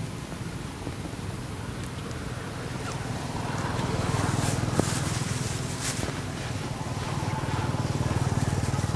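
Steady low outdoor rumble with a hiss over it, growing a little louder about three and a half seconds in, with a few short hissing sounds and a single click partway through.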